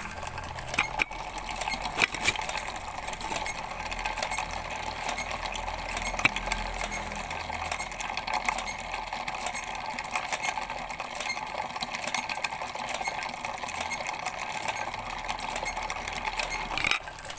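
Automatic coil-winding machine running steadily as it winds wire onto a motorcycle alternator stator coil, a continuous whirr with a few sharp clicks.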